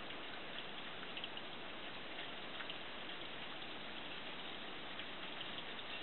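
Steady rain hiss with faint scattered drop ticks.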